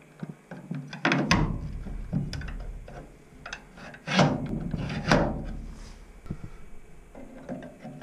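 3D-printed two-point door lock with 12 mm steel shafts being worked by hand: the shafts slide and rub in the plastic rack-and-pinion housing, with several loud clunks. The loudest come about a second in and around four and five seconds in.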